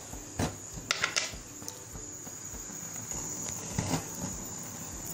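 A few light metallic clicks and knocks as the pressure weight is set onto the vent pipe of an aluminium Euro pressure cooker lid, over a steady high-pitched whine.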